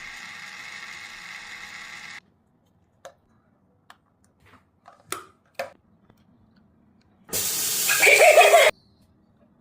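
A tiny toy washing machine's small motor whirs steadily, then stops abruptly about two seconds in. A few light clicks and taps follow. Near the end comes a loud rush of water lasting about a second and a half.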